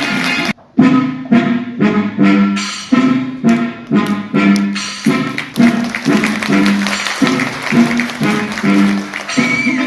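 Background instrumental music with a brisk melody of short, evenly repeated notes. It cuts out briefly about half a second in, then carries on.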